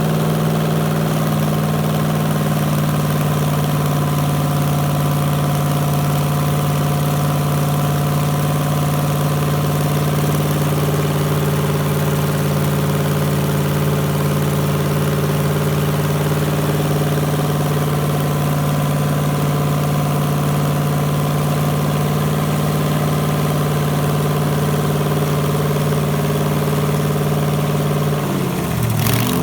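V8 boat engine idling at a steady, even speed. Near the end its pitch dips and then comes back up.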